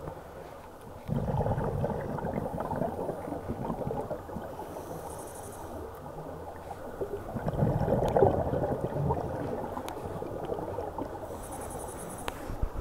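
A scuba diver's regulator exhaling, heard underwater: two long rushes of bubbles, one starting about a second in and a louder one around eight seconds in, over a low steady water rumble.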